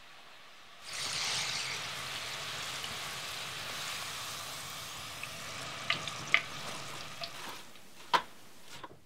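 Potato fries frying in hot oil: a loud, steady sizzle sets in suddenly about a second in and dies away near the end. A few sharp metallic clicks come in the later part, as the wire strainer knocks.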